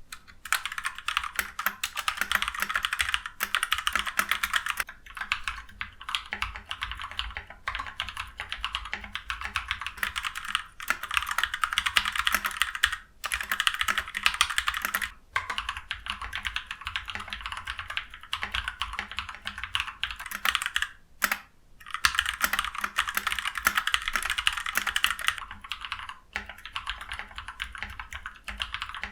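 Continuous fast typing on an Ajazz K680T mechanical keyboard, a dense run of key clacks with a few short pauses, the longest about 21 seconds in.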